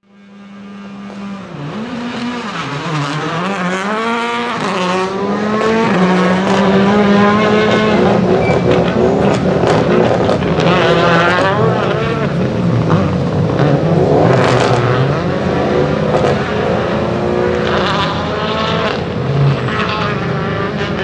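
Rally car engine revving hard, its pitch repeatedly climbing and dropping as it accelerates, shifts and lifts, with a few sharp cracks. The sound fades in at the start.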